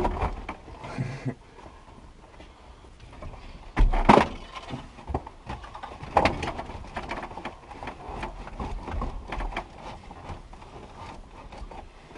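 Irregular knocks, clicks and rattles of hands and tools working on a Ford F-150's stripped dashboard, with a louder thump about four seconds in and another about six seconds in.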